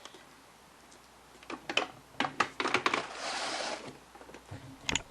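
Hard plastic clicks and knocks, then a short scrape, as a plastic collector's helmet is handled and set onto its display stand. A final pair of knocks comes near the end.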